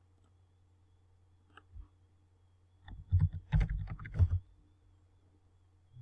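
Computer keyboard keystrokes, close and thuddy: a couple of faint clicks about one and a half seconds in, then a quick run of louder keystrokes lasting about a second and a half from around three seconds in.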